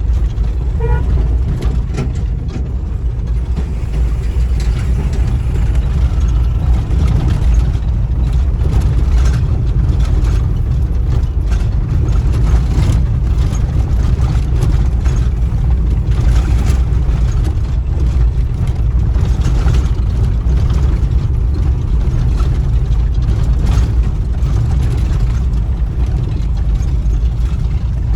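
Vehicle travelling along a rough road under construction: a steady low rumble of engine and tyres, with frequent knocks and rattles.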